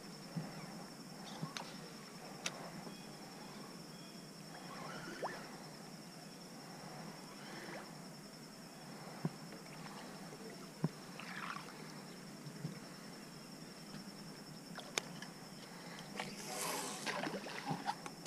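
Quiet outdoor ambience on a calm lake around a small fishing boat: faint water trickling and lapping, scattered small clicks and knocks, and a brief splashing rush near the end.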